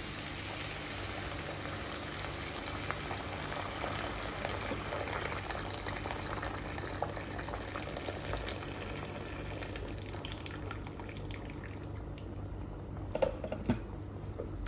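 Water poured in a steady stream from a glass electric kettle into a frying pan of meat and tomato sauce, the pan filling up. The stream fades out about ten seconds in, and a couple of light knocks follow near the end.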